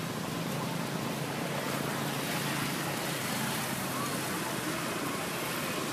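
Steady outdoor background noise of wind and distant motor traffic, with no distinct sound standing out.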